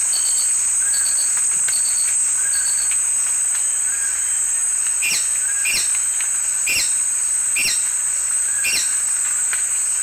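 White-whiskered Hermit singing, a field recording: a short, high, squeaky note repeated about once a second, the notes turning sharper and sliding down from about halfway through. A steady high-pitched hiss runs beneath the song.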